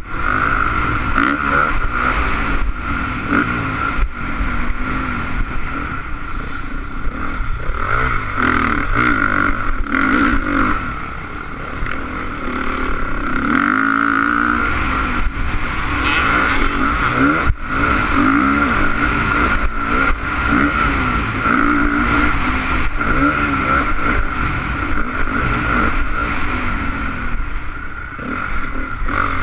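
Honda CRF450 single-cylinder four-stroke motocross engine running hard, its pitch climbing and dropping over and over as the rider revs through the gears and shuts off for corners.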